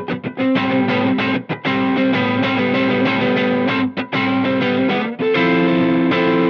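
Electric guitar played through a Cornerstone Antique Classic Drive V2, a Tube Screamer-style overdrive pedal, giving a driven tone. A few quick picked notes come first, then overdriven chords are struck and left to ring for a second or two each.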